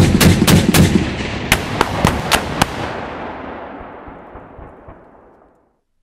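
Piranha DF30's 30 mm cannon firing two short bursts of rapid shots, about four rounds a second, with a pause of under a second between the bursts. The echo then fades away.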